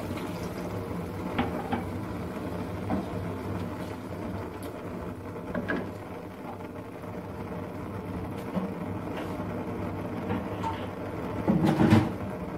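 A steady low machine-like hum, with a few light clicks and knocks of kitchenware on a pan and a louder clatter near the end.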